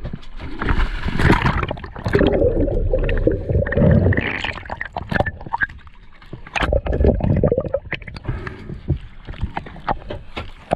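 Water noise around a mask-mounted camera as it goes below the sea surface, with many scattered sharp clicks; louder in the first four seconds, then quieter.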